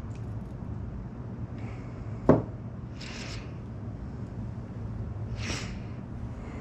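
Handling noises while melted soft plastic is poured into a bait mold: one sharp click about two seconds in and two brief rubbing swishes, over a steady low hum.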